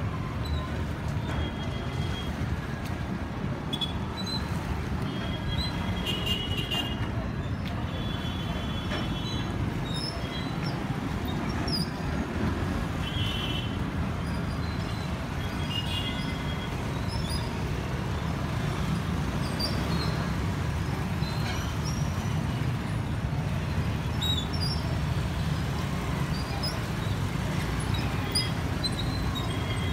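Motorcycles and scooters riding off a docked vehicle ferry, their small engines running over a steady low engine rumble, with brief high-pitched tones now and then.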